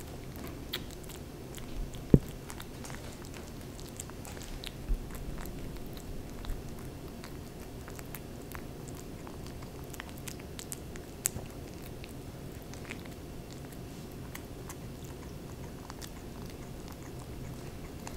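Kitten eating soft, mashed wet food from a ceramic saucer, close up: many small wet chewing and lapping clicks. A single louder knock comes about two seconds in.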